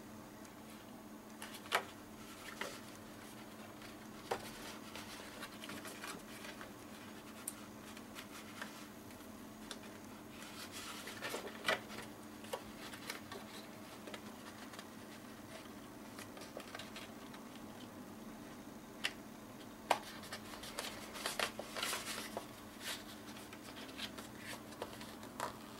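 Hands handling and pressing cardstock and paper pieces: scattered rustles, scrapes and light taps, busiest around the middle and again near the end. A faint steady low hum runs underneath.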